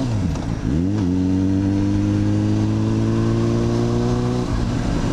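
Yamaha FZ6 motorcycle engine under way: its revs dip briefly at the start, then climb slowly and steadily for about three and a half seconds before breaking off near the end. Steady wind noise runs underneath.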